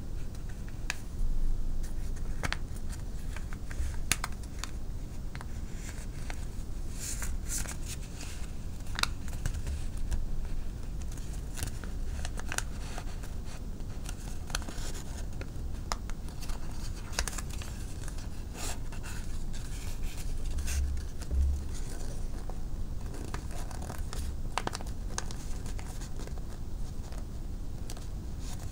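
A sheet of printed paper being folded and creased by hand for origami: scattered crinkles, scrapes and short clicks of paper and fingertips, over a low steady hum.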